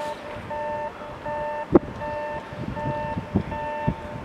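An electronic warning beeper sounding a steady two-tone beep, about four beeps every three seconds. A sharp click comes a little under two seconds in, and a few softer knocks follow.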